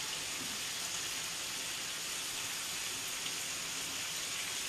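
Low, steady sizzling hiss from a pan on the gas stove.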